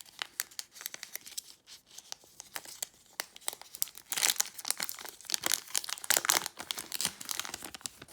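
Foil Pokémon booster pack wrapper crinkling and being torn open, with dense crackling that grows louder and thicker about halfway through as the wrapper rips.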